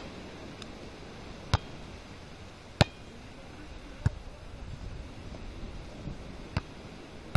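A volleyball being struck by players' hands and forearms during a beach volleyball rally: sharp slaps every second or so, about five in all, the two loudest close together early on.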